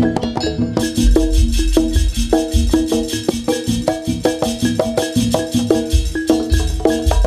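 Live jaranan gamelan ensemble playing a fast, driving rhythm of struck metallophone notes and hand drums. About a second in, deep low beats and a high shimmering hiss join the rhythm.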